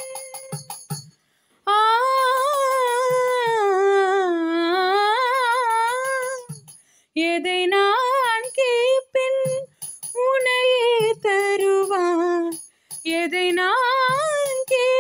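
Female voice singing a wordless, melismatic Carnatic-style phrase, its pitch gliding and wavering in long runs broken by short pauses.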